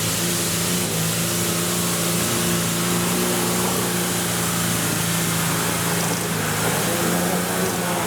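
An off-road 4x4's engine running at a steady speed, with a steady hiss over it.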